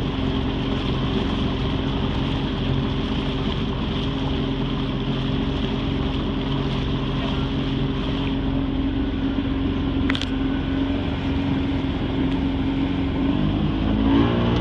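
Motorboat engine running steadily under way, with a noisy rush of water and wind over it. A single short click comes about ten seconds in, and near the end the engine note shifts up and gets a little louder.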